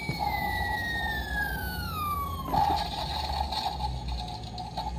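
Soldier Force toy armoured truck's electronic sound effects through its small speaker: a siren-like tone falling steadily in pitch for about two and a half seconds, then a harsher, rougher sound that runs on and cuts off shortly before the end, over a low rumble.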